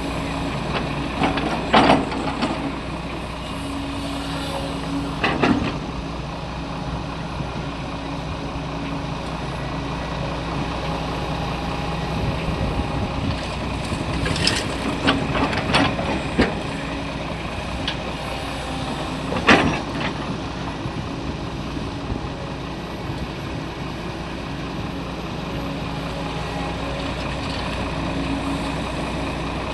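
Heavy diesel machinery, an excavator loading a dump truck, running steadily. A few short, sharp sounds cut through: about two seconds in, around five seconds, a cluster around fifteen seconds, and the loudest near twenty seconds.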